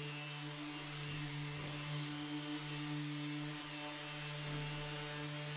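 Electric orbital sander running steadily on the wooden drawer, giving a light sand with a constant motor hum.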